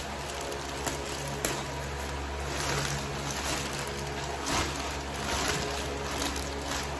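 Plastic bag of water crinkling and the water in it sloshing as the bag is handled and lifted, in uneven swells, with two sharp clicks about a second in. A steady low hum runs underneath.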